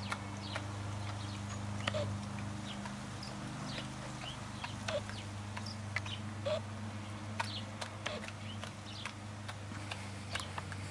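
Border collie puppy licking and smacking her lips on a mouthful of peanut butter, an irregular string of short wet clicks. A steady low hum runs underneath.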